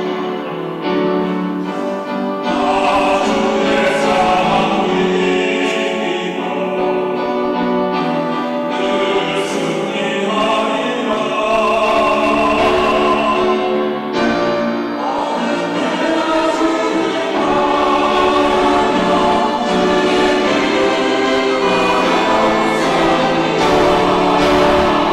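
Church choir singing a sacred anthem, many voices holding sustained chords, with a brief break between phrases about fourteen seconds in.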